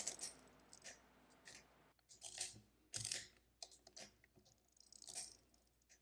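Gearwork of a Burkhardt arithmometer, a stepped-drum mechanical calculator, turning as its crank is worked. It gives a few faint metallic clicks and clatters at uneven intervals, the loudest about three seconds in.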